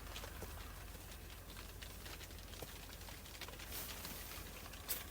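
Quiet handling noise: faint, scattered small ticks and rustles of fingers and clothing while maggots are threaded onto a winter fishing hook, over a steady low rumble.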